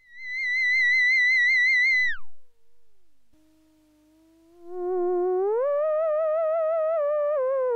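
LV3P theremin played dry with no added effects. A high note with vibrato is held, then swoops steeply down and fades almost to nothing. A lower note then swells in, glides up and is held with vibrato, dipping slightly near the end.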